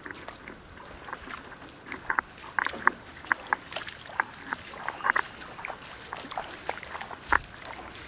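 Feet wading through ankle-deep stream water, splashing and plopping about twice a second in an uneven rhythm.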